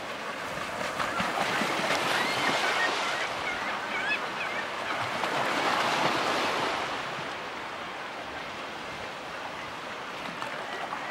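Choppy water washing and slapping against a concrete pier wall, swelling louder twice, with wind buffeting the microphone. A few short high gull calls sound faintly about two to four seconds in.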